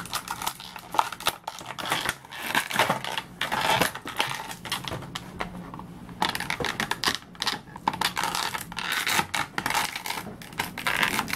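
Plastic toy packaging crinkling and clicking in irregular bursts as a figure is worked out of its box.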